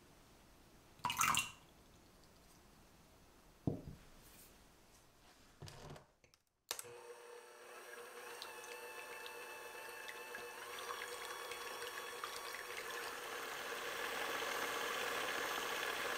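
A couple of short splashes and plops of liquid going into a glass bowl, then an electric hand mixer starts and runs steadily, its wire beaters whipping egg whites into foam. The mixer grows louder as the whites froth, and its pitch steps up partway through.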